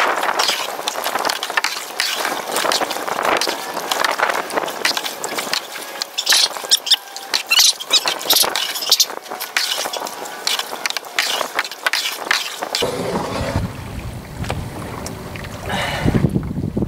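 Canoe paddle dipping and pulling through the water beside a plastic canoe: many short, irregular splashes and drips. About thirteen seconds in, a low rumble joins them.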